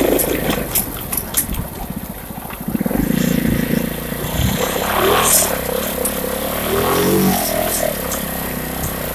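Suzuki 500cc twin-cylinder motorcycle engine in a custom Yamaha Blaster quad, running under way. Its pitch rises and falls as it revs up and down in the second half, with scattered sharp clicks in the first couple of seconds.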